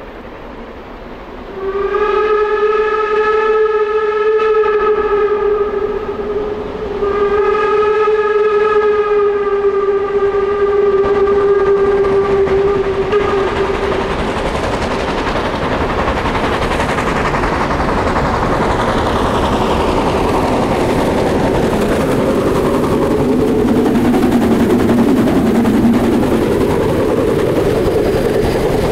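Harz narrow-gauge steam locomotive's whistle sounding two long blasts, the second longer, as it approaches a level crossing. Then the working exhaust and running noise of the locomotive and its coaches grow louder as the train comes past.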